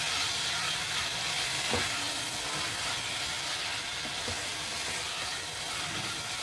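Onion-tomato masala with boiled potato pieces sizzling steadily in a nonstick pan while a wooden spatula stirs through it, with a couple of soft scrapes of the spatula.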